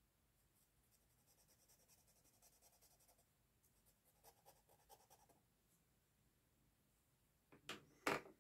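Felt-tip marker scratching faintly on sketchbook paper in quick short strokes, colouring in a small shape. Near the end there are a few louder knocks and rustles.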